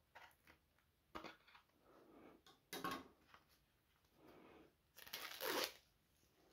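Faint handling noise of an album case being turned over in the hands above a cardboard box: a few short rustles and scrapes, the longest and loudest a swish about five seconds in.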